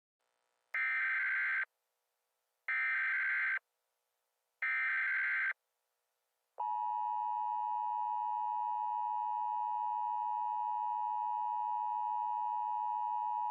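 Emergency Alert System broadcast signal: three short bursts of SAME header data, each about a second long, followed about halfway in by the steady two-tone EAS attention signal.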